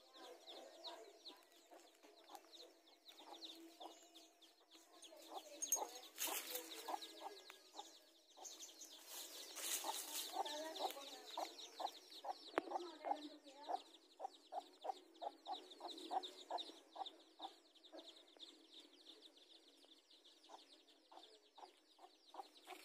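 Mother hen clucking to her chicks in a long run of short, low clucks, quickest and loudest in the middle, while the chicks peep in thin, high cheeps throughout.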